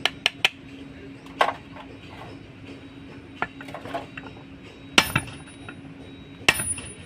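Sharp metallic clinks and taps of tools on steel parts during work on a truck's propeller-shaft universal joint: a quick run of small taps at the start, a few scattered ones, then two louder strikes near the end that ring on briefly, over a steady low hum.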